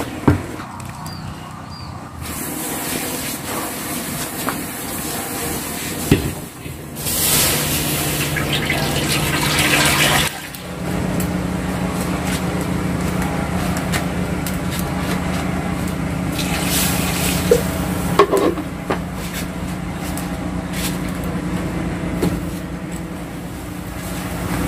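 Water being poured into a cooking pot for about three seconds, among a few knocks of pots and utensils. After the pour a steady low hum carries on.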